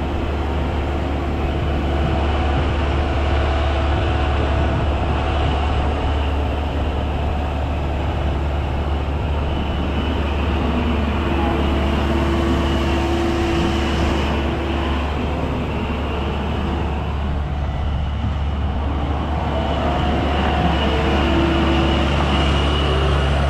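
A vehicle engine idling steadily, a deep even hum that holds through the whole stretch.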